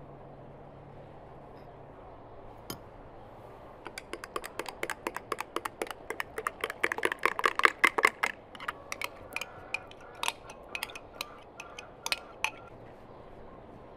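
A metal spoon clinking and scraping against a drinking glass as it scoops thick cream out, in quick taps several a second. The taps start about four seconds in, are loudest in the middle, and thin out near the end.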